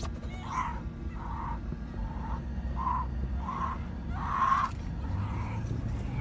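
Grizzly bear cub bawling: a string of short calls, about one every 0.7 seconds, the loudest just past the middle. A car engine idles low underneath.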